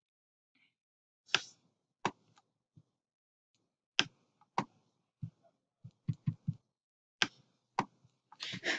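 Irregular sharp single clicks of a computer mouse and keyboard, about a dozen in all, with a quick run of several about six seconds in.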